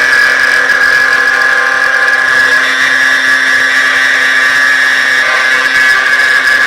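Spindle of a CNC router for aluminium profiles milling an aluminium profile: a loud, steady, high-pitched whine of the cutter in the metal.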